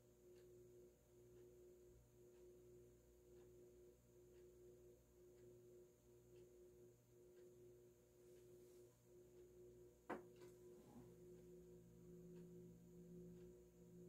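FASCO Heat-Cycler ceiling fan motor running at medium speed on a solid-state speed control: a faint steady hum with a tone that swells and fades about once a second. About ten seconds in there is a single click, and a lower hum joins after it.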